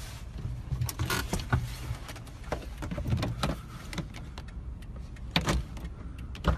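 Low steady rumble inside a car, with scattered sharp clicks and knocks at the door and window edge, the loudest about five and a half seconds in.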